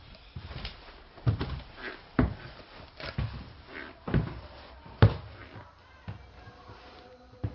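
Footsteps on wooden stairs: about six heavy footfalls, roughly one a second, dying away after about five seconds.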